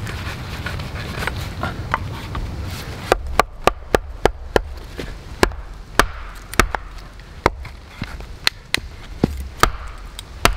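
An axe wedged in a firewood log being worked and knocked down onto a wooden chopping block to split the log: quieter scraping and knocks at first, then from about three seconds in a dozen or more sharp wooden knocks at irregular spacing, about one to two a second.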